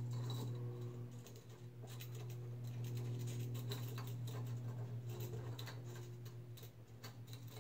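Small irregular metallic clicks and ticks of an Allen wrench tightening the screws on the top plate of a steel puncture test fixture, over a steady low hum.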